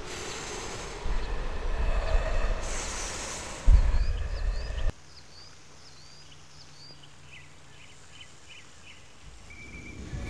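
A loud rumbling noise with a heavy thump near four seconds in, cut off abruptly about five seconds in. Then comes a quiet background in which birds chirp in short rising calls.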